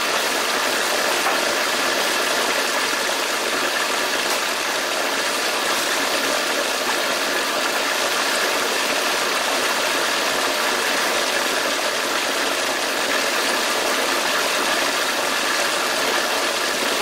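Food processor motor running steadily, pureeing cooked cauliflower into a creamy alfredo sauce.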